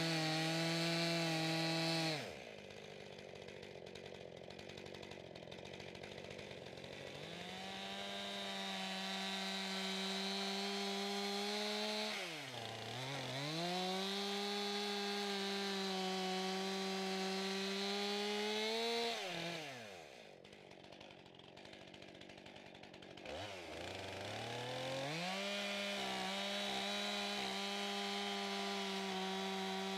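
Stihl chainsaw cutting into the end of a timber log, its engine note rising and falling as the throttle works. It runs at high revs, drops away about two seconds in, dips briefly near the middle, falls again about two-thirds of the way through, and climbs back each time.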